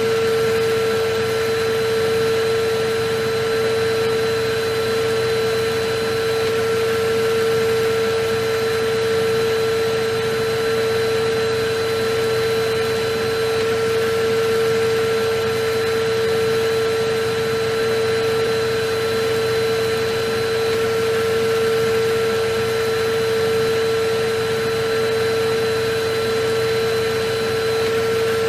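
Electric vacuum cleaner running steadily: an even rushing noise with a constant motor whine that never changes.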